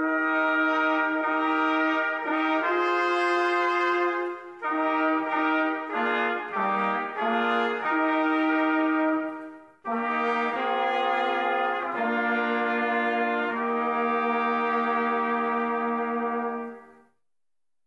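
A brass band of trumpets, trombones and a tuba plays a slow hymn in long held chords. One phrase runs for about ten seconds, then after a brief break a second phrase ends about a second before the end.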